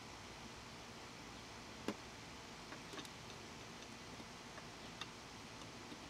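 A few light, irregular clicks and taps, the sharpest about two seconds in, of small metal parts and a hand tool being handled while the smoker's parts are taken off, over a steady faint hiss.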